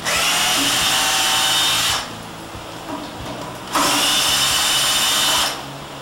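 Cordless drill run in two bursts of about two seconds each, the second starting about a second and a half after the first stops.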